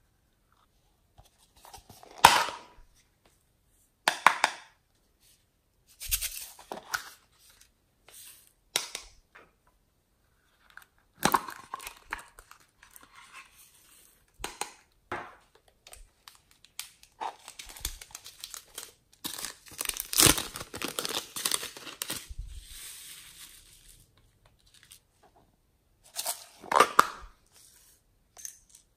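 Thin plastic cups and packets crinkling as glitter and confetti sprinkles are shaken out of them onto slime. The sound comes in a string of short bursts, with a longer stretch of crinkling past the middle.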